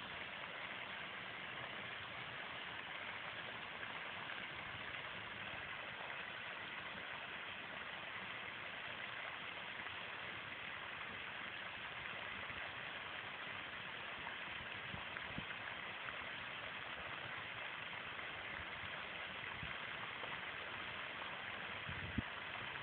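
Steady, even background hiss of outdoor ambience with no distinct source, and a couple of short soft knocks near the end.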